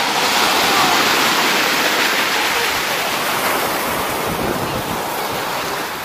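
Stormy sea surf: rough waves breaking and washing up the shore as a steady rushing that swells within the first second and then slowly eases off.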